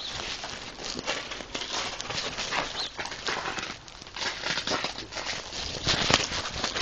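Irregular crackling and rustling with quick knocks, picked up by a GoPro worn by a husky as the dog moves about; louder knocks near the end.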